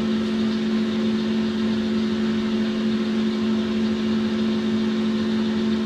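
Boxford centre lathe running free at 1100 RPM with no cut being taken: a steady machine hum with a strong low tone, a bit noisy.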